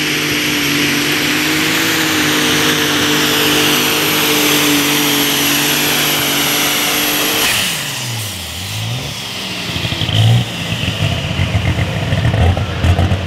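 Light super stock John Deere pulling tractor running flat out under load, with a high steady whine over the engine. About seven and a half seconds in the whine cuts off and the engine pitch falls away as the throttle is released at the end of the pull, then the engine runs on at a low, rough, uneven idle.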